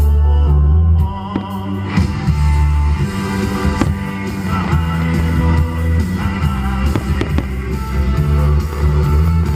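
Rock music with guitar and some singing, a steady bass line moving from note to note.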